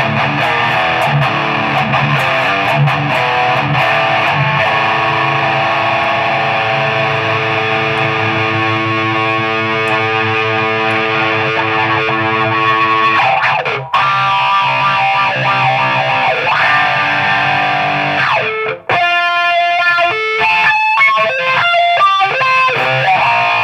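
Distorted electric guitar played through a Cry Baby wah pedal: held chords with the wah sweeping up and down through the tone, then a choppier single-note riff near the end.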